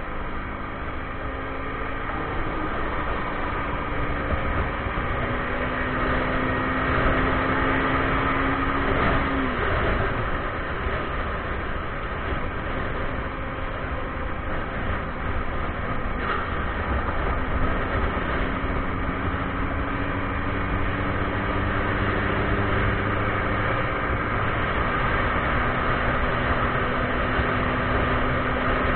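Motorcycle engine running while the bike rides along, with wind rushing over the action camera's microphone. The engine note climbs slowly, dips sharply about a third of the way in, then climbs again.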